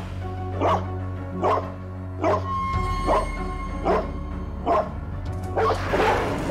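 An aggressive dog barking in a steady run, about one bark every 0.8 seconds, with a longer burst of barking near the end, over background music with a steady low bass.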